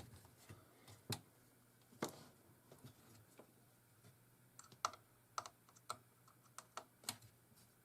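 Scattered light clicks and taps of small parts being handled: fuses in the jukebox power supply being checked one by one. There are a couple of single clicks early and a quicker run of clicks in the second half.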